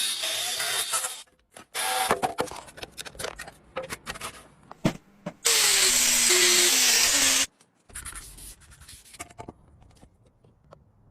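Restoration work on rusty bicycle parts: rough rubbing and scraping in uneven bursts with sharp clicks and knocks, then a loud steady hissing noise lasting about two seconds just past the middle, followed by quieter scattered ticks.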